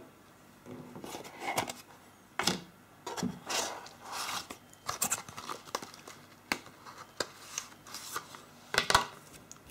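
Cardboard phone-box packaging being handled: the insert tray lifted out of the box, with irregular rustles, scrapes and light knocks of cardboard. The loudest knock comes near the end.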